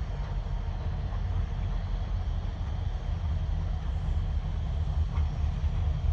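Diesel freight locomotive approaching head-on, a low engine rumble that grows slightly louder.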